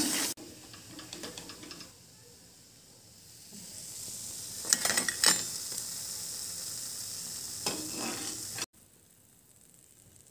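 Hot oil sizzling as chana dal bhaji fry, with a few sharp clicks and taps of the slotted spoon and fritters against a steel plate around the middle. The sizzle cuts off suddenly near the end.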